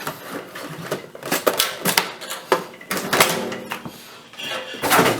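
Handling noise from a Craftsman metal tool chest drawer: irregular sharp clicks, knocks and rattles as plastic packaging is pulled out from among the tools.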